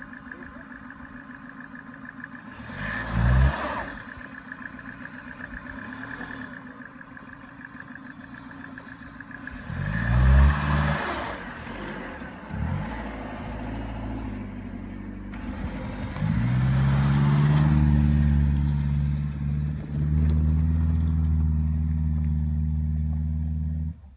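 The four-cylinder engine of a 2000 Dodge Neon revving up in several bursts, then held at steady higher revs before cutting off abruptly near the end, as the car works its way over a log. Two short louder rushes of noise come about three and ten seconds in.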